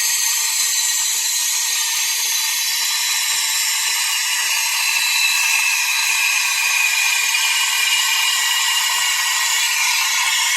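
Espresso machine steam wand hissing steadily with its tip in a jug of milk, frothing it.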